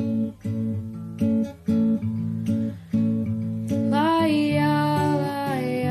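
Song accompaniment of acoustic guitar strumming short chords. About four seconds in, a wordless vocal melody of long, gliding held notes comes in over the guitar.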